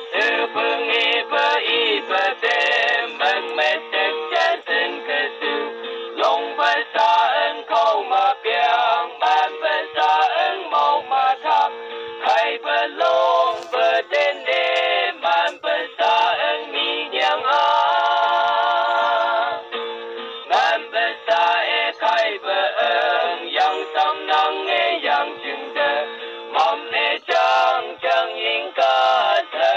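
Music: a man singing a song with instrumental backing. The sound is thin, with no bass and no highs.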